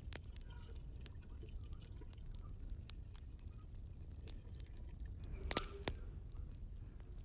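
Hot water poured from a kettle into a cast iron pot of tripe, splashing and dripping into the liquid, with scattered small clicks. A short clatter about five and a half seconds in, as the pot's lid goes on.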